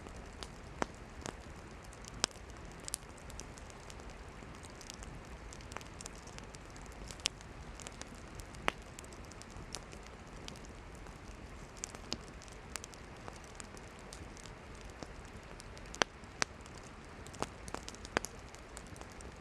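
Wood campfire burning: a steady hiss with irregular crackles and sharp pops from the burning firewood, a few pops louder than the rest.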